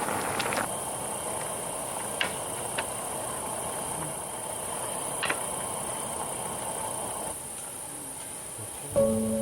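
Insects chirring in one steady high-pitched band, over a steady low rushing hiss and a few light clicks. Music comes in near the end.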